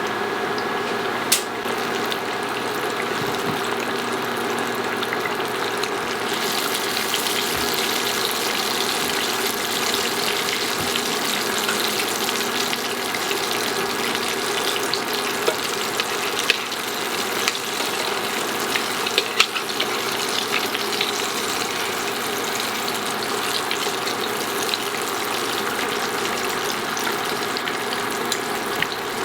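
Flour-coated chicken breast deep-frying in oil at about 350°F: a steady sizzling hiss with scattered pops and crackles, turning hissier about six seconds in.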